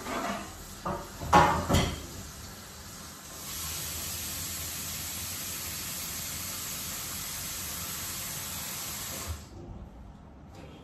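A metal wok knocking and clattering a few times, then a steady hiss that lasts about six seconds and cuts off suddenly.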